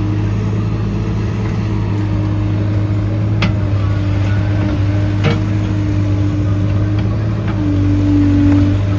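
JCB backhoe loader's diesel engine running steadily, with a couple of sharp metallic knocks a few seconds in. Near the end the engine speeds up briefly under load.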